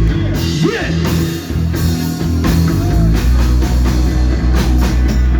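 Live band playing amplified music with electric guitar, bass and drum kit, between vocal lines.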